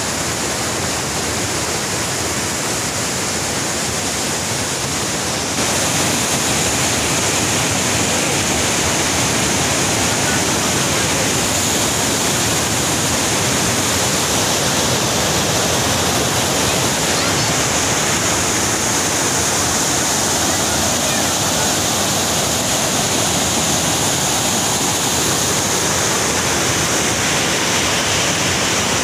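Steady rushing of white water pouring down a small waterfall, getting louder about five and a half seconds in.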